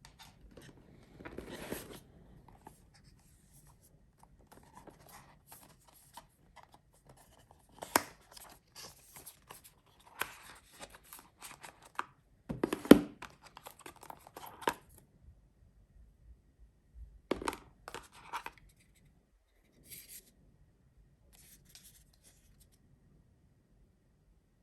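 Hands handling a VR headset and its packaging: scattered clicks, scrapes and rustles, with a sharp knock about eight seconds in and a louder clatter around thirteen seconds.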